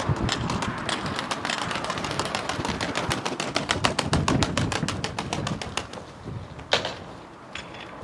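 A domestic pigeon's wings clapping and beating in a fast clatter as it is tossed and flies off. The clatter thins out after about six seconds, with one more sharp clap near the end.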